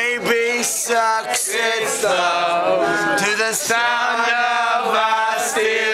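Two men singing a duet, male voices holding long, sliding notes.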